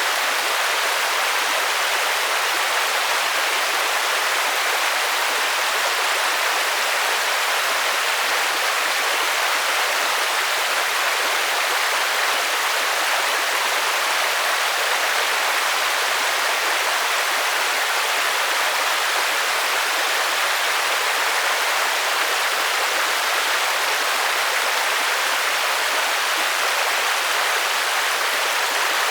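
Steady, dense rainfall hiss like white noise, even and unchanging, with no separate drops or knocks standing out and little deep rumble.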